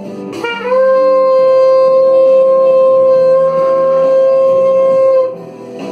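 Shofar sounding one long held blast, after a short note and a quick upward scoop into the pitch, over a soft instrumental backing.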